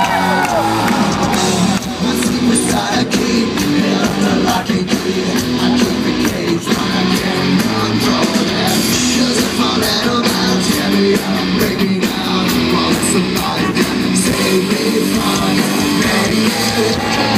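Hard rock band playing live through a concert PA: distorted electric guitars, bass and drums, heard from within the crowd.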